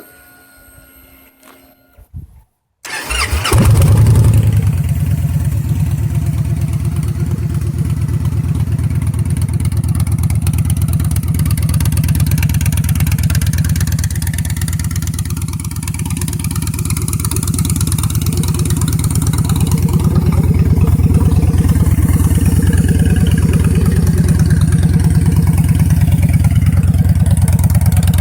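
2012 Victory High Ball's 106-cubic-inch Freedom V-twin, breathing through aftermarket Zoomies exhaust, cranks and fires about three seconds in, rising briefly on catching and then idling loudly with a rapid pulsing beat. A few faint clicks come before it starts.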